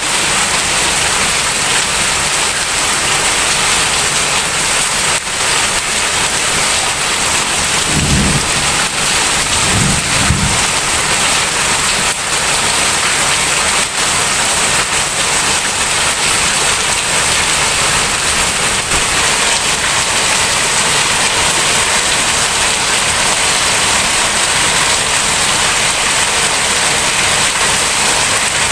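Heavy rain pouring steadily, a dense hiss of drops on surfaces, with two brief low rumbles about eight and ten seconds in.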